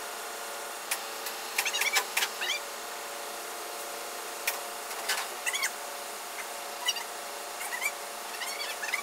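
A steady engine hum from the idling loader holding the mill. Over it come scattered sharp metal clicks and short high chirps as the machine is lowered onto skates.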